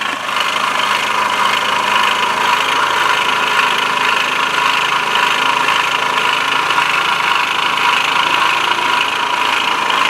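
Bashan BWS-2 scooter's 157QMG single-cylinder four-stroke engine idling steadily with a clearly audible rattling knock, a foreign noise that appeared on the scooter from new and whose cause is not yet found; the mechanic suspects the variator first.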